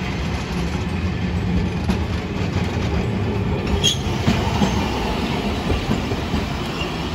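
Hiroden 1900-series streetcar passing close by: a steady low running rumble and hum, with the wheels clacking on the rails and a sharp click about four seconds in.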